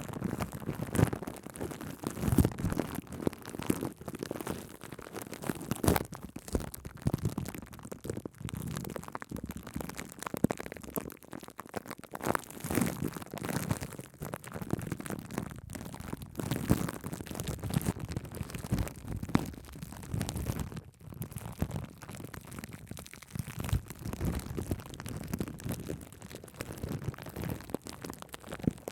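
Shaving cream foam being worked directly on a microphone: a close, continuous crackling and rustling with irregular louder swipes.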